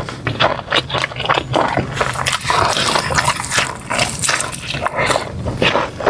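Close-miked eating of crispy fried chicken wings: crunching and chewing, many crunches in quick succession, most crowded in the middle.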